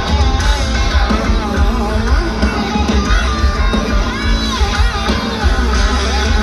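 Heavy metal band playing live: electric guitars over a heavy, steady low end of bass and drums, with a vocal line.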